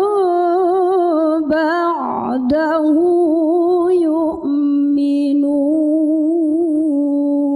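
A woman reciting the Qur'an in melodic tilawah style, drawing out the words "hadithin ba'dahu" in long ornamented notes. There is a brief breathy break about two seconds in, and from about halfway the voice settles onto a steady lower held note.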